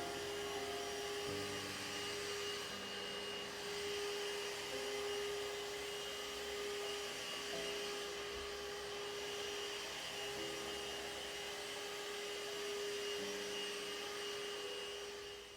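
A steady whirring electric motor, such as a household appliance, runs throughout at an even pitch, with soft background music underneath; it fades out right at the end.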